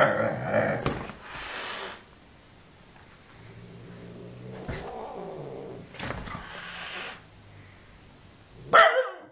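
A cat growling and yowling in warning at a dog. It is loudest at the start, quieter and lower through the middle, and ends in a short loud cry near the end.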